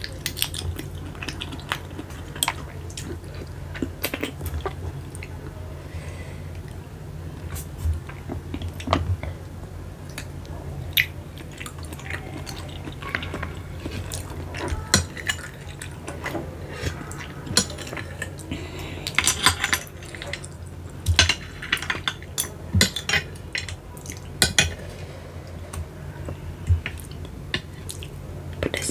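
Babylon sea snail shells clicking and clinking against a glass dish and against each other as they are handled in thick chili sauce, with wet sucking and smacking as the meat is sucked from the shells. The clicks come singly and irregularly, in a busier cluster a little past the middle.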